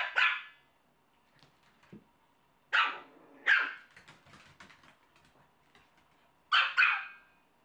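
Small dogs barking in play: six short, high-pitched barks in three pairs, at the start, about three seconds in, and near the end.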